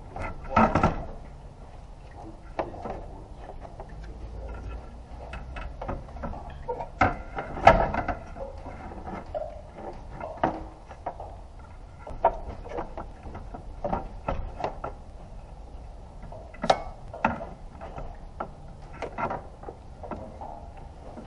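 Irregular clicks and knocks of plastic and metal parts being handled around a car radiator in the engine bay, loudest about half a second in and again near eight seconds in.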